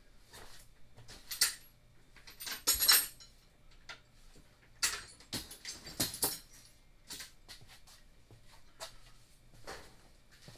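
Irregular metallic clinks and rattles of hand tools and bolts being handled. The louder clatters come about a second and a half in, around three seconds in, and between five and six seconds in.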